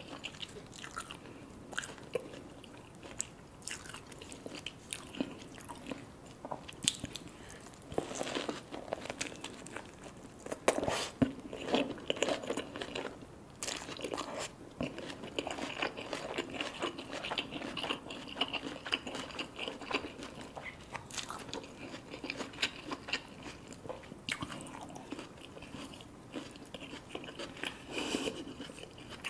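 A person biting and chewing crunchy fried food, with repeated crisp crunches, a dense run of them about a third of the way in.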